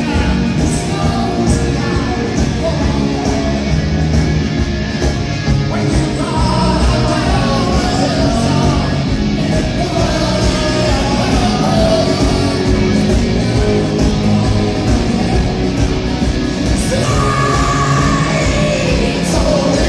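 Live rock band playing loud, with a singer, heard from among the crowd in a large hall.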